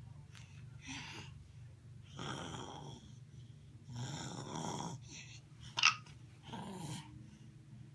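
A baby making breathy, growling vocal noises in several short bursts, with one short, sharp hiccup about six seconds in.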